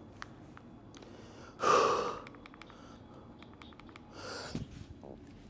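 A man breathing hard from the exertion of lifting weights. There is a loud, forceful exhale about two seconds in and a softer breath near the end, with a few faint clicks between them.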